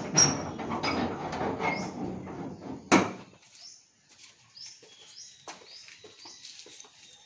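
Corrugated sheet-metal gate rattling and clanking as it is handled, with a sharp clang about three seconds in. The rattling then cuts off, leaving small birds chirping over and over.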